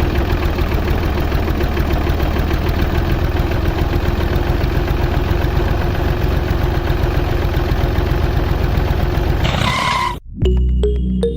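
Small engine running steadily with a fast, even pulsing, likely the homemade mini tractor's engine; it cuts off abruptly about ten seconds in and music follows.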